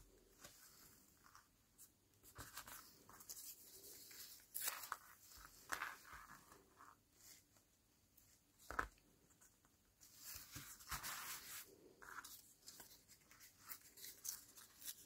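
Faint rustling and rubbing of paper scraps being handled and glued down with a glue stick, with a sharp click about nine seconds in.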